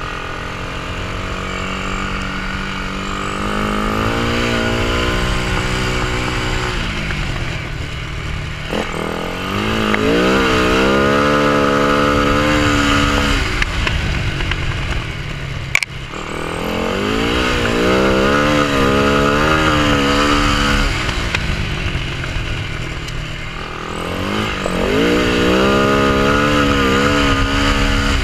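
Husaberg 650 supermoto's single-cylinder four-stroke engine on the throttle down the straights and backing off into the turns, its pitch climbing and falling back about four times. A sharp knock comes about halfway through.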